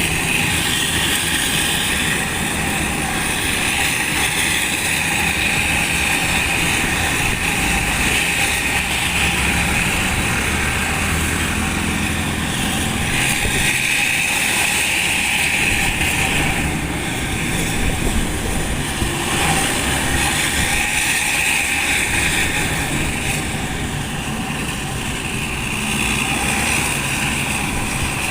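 Hino RK bus's diesel engine running through a loud aftermarket exhaust with a deep, snoring note. The sound is continuous and swells and eases in stretches.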